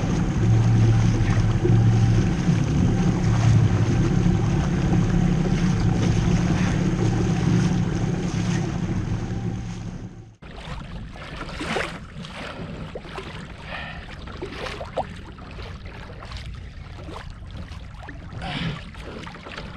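Torqeedo Ultralight electric kayak motor running steadily under power, with water rushing along the hull, as the kayak is driven toward a hooked fish to recover line. About ten seconds in the sound cuts off abruptly to quieter water splashing and lapping against the kayak, with wind on the microphone.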